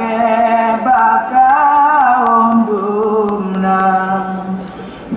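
Vocal chant accompanying a Saman dance: voices singing slow, long-held notes that slide between pitches, with no instruments. The phrase fades near the end and a new one begins.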